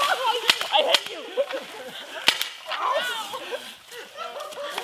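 A paintball gun firing a few sharp cracks, the loudest about two seconds in, over men's wordless shouting and yelling.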